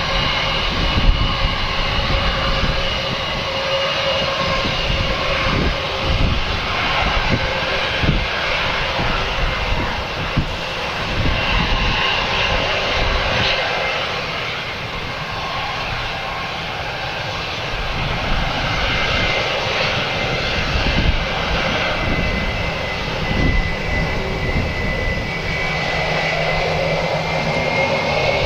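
Airbus A320 jet engines running with a steady high whine, which starts to rise in pitch near the end as the engines spool up for take-off. Strong gusty wind buffets the microphone with low rumbles throughout.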